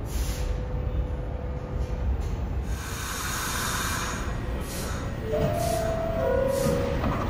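New York City subway train running through the station: a steady low rumble, a hiss of air about three seconds in, then wheels clicking over rail joints at a steady beat, with brief high-pitched wheel squeals near the end.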